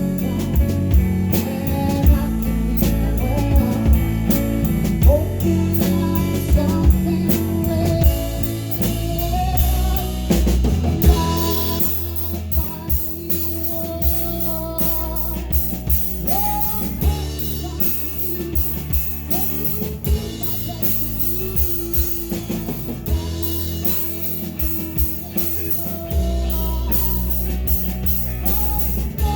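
A live rock band plays a song: a singer's voice over guitar and a drum kit. The low end drops away for a few seconds after the middle and then comes back.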